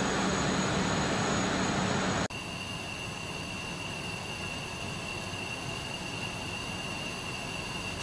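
Steady running noise of carbon fibre winding machinery. A low hum changes abruptly, about two seconds in, to a steady whir with a high whine.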